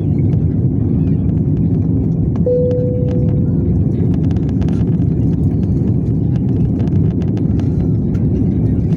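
Airliner cabin noise during the takeoff climb: a steady, loud, low rumble of engines and airflow. A single short tone sounds about two and a half seconds in and fades within a second.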